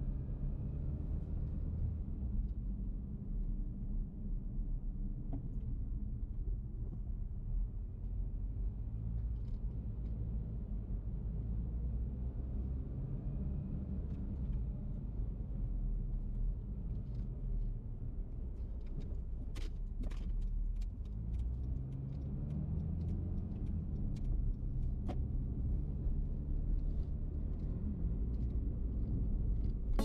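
Car engine and tyre rumble heard from inside the cabin while driving slowly, with the engine note rising as the car speeds up about two-thirds of the way through. A few light clicks in the second half.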